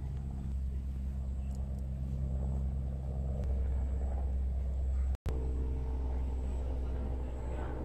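A steady, low engine hum. Its tone shifts about three and a half seconds in, and it cuts out for an instant about five seconds in.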